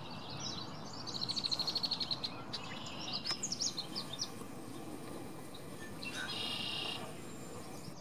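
Small wild songbirds singing in the background: a rapid high trill of about a dozen notes a second about a second in, a scatter of quick high chirps a little later, and a short buzzy note near the end, over a steady low background noise.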